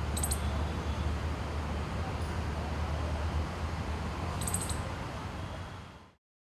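Five-striped palm squirrel giving two short bursts of rapid, high-pitched chirping squeaks, one near the start and one about four and a half seconds in, over a steady low traffic rumble. The sound fades out shortly before the end.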